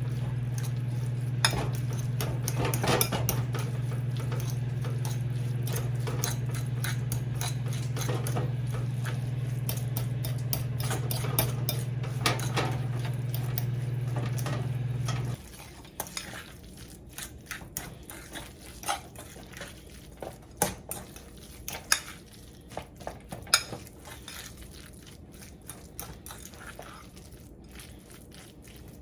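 A microwave oven hums steadily and shuts off abruptly about halfway through, while utensils clink and scrape against dishes.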